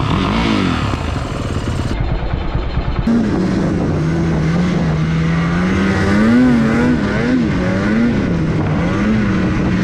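Snowmobile engine running while riding, its note rising and falling with the throttle. Before that, a cut brings a short stretch of engine noise from the sleds.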